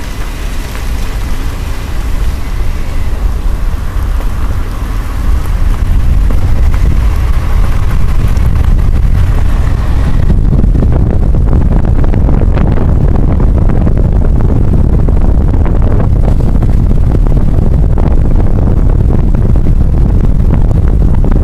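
Car driving along a road: a loud, steady low rumble of road and wind noise that grows louder about six seconds in. The high hiss drops away suddenly about ten seconds in.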